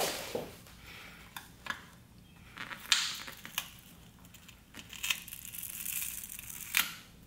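Plastic pry bar working under a motorcycle's aluminium dummy tank cap held on double-sided tape, with a microfiber towel rustling against the tank: scattered small clicks and scrapes with spells of crinkling, tearing noise as the cap is prised loose.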